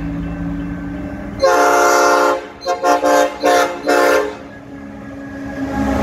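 Diesel freight locomotive's multi-tone horn sounding one long blast, then several short toots in quick succession, over the steady rumble of its engine. The engine grows louder near the end as the locomotive draws closer.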